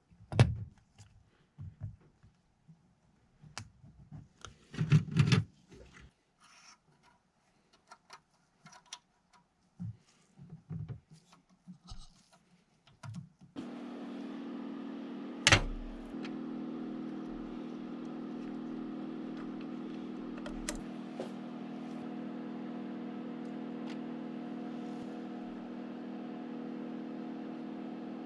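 Light clicks and knocks of small parts being handled, then about halfway through a steady idling car engine cuts in suddenly and runs evenly, with one sharp knock a couple of seconds after it starts.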